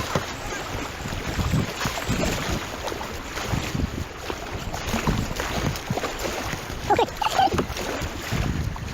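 Wind buffeting an action camera's microphone over moving river water during a kayak run downriver, with a brief pitched sound about seven seconds in.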